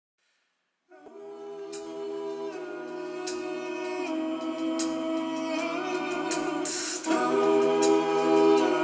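Music of slow, sustained sung chords, like a choir singing unaccompanied. It fades in about a second in, the chords change every second or two, and it gets louder near the end.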